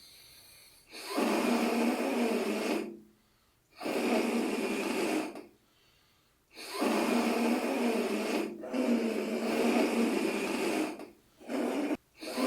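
Air blown in repeated blows of one to two seconds, with short pauses, through a homemade model windpipe with a slit cut in it. Each blow makes a snore-like rasp that shows how a slack, narrowed airway flutters and makes snoring.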